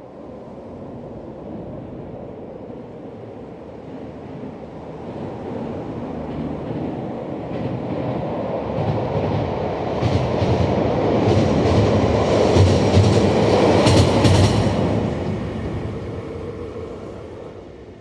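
A train passing by on the rails. Its rumble builds steadily, peaks with a rapid clatter of wheels over the rail joints about two-thirds of the way in, then fades away as it recedes.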